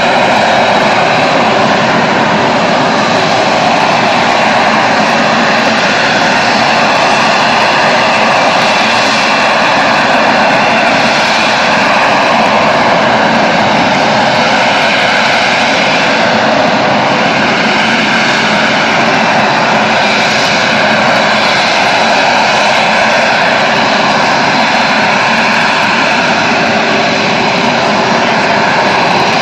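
Sea Harrier's Rolls-Royce Pegasus vectored-thrust turbofan at hover power: loud, steady jet noise with a held whine over it, swelling and easing slightly.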